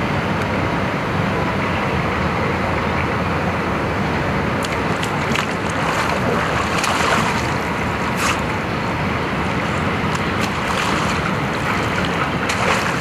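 Water splashing in a shallow rock pool as a person wades in, drops into the water and swims with arm strokes; irregular splashes start about four seconds in and come every second or so. Underneath, a steady rushing background noise.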